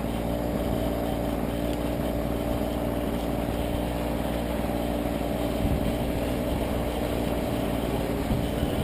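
Yuneec Q500 Typhoon quadcopter hovering, its four electric motors and propellers humming steadily, with wind rumbling on the microphone.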